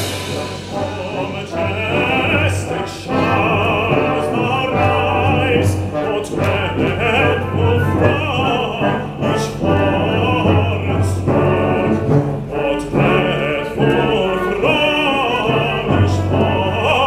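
A live orchestra playing, with an operatic voice singing over it with vibrato.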